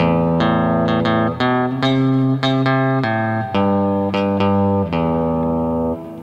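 Instrumental music: plucked guitar over a bass line, a new note or chord struck about every half second.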